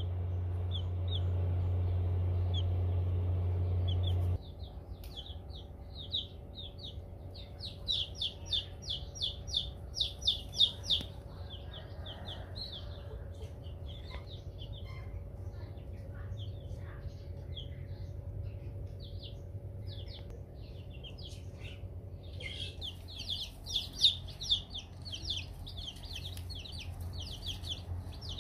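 Newly hatched chicks peeping: rapid, high-pitched cheeps in flurries. A steady low hum stops abruptly about four seconds in.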